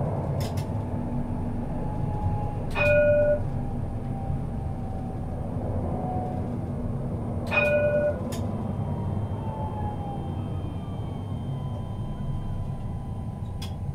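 Tram running along its track, heard from on board: a steady low rumble with a faint traction-motor whine that glides slowly in pitch. Two short, loud ringing tones sound about five seconds apart, around three and eight seconds in.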